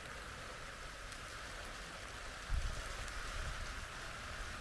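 Rain falling on the wet steel top of a camp wood stove and the ground around it: a steady hiss with a few faint drop ticks. A low bump about two and a half seconds in.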